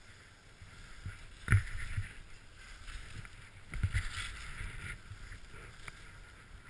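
Skis sliding and swishing through deep powder snow on a steep descent, with two dull thumps, about one and a half and four seconds in.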